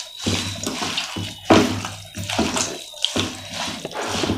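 Wet squelching of raw chopped yellow cucumber, tomatoes and onions, coated in oil and spice powder, being mixed and squeezed by hand in a pan, the tomatoes crushed as they are worked. It comes in repeated strokes, a new surge every half second or so.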